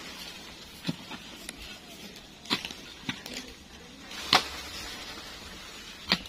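A mattock chopping into soil and tree roots at the base of a teak tree, five separate strikes a second or two apart, the loudest about four seconds in.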